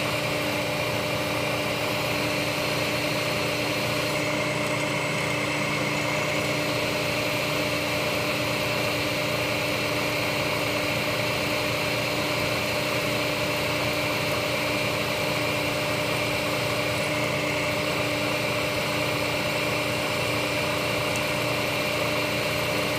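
Milling machine spindle running steadily while a quarter-inch end mill cuts out a broken 8 mm bolt: a constant mechanical hum with a high whine over it.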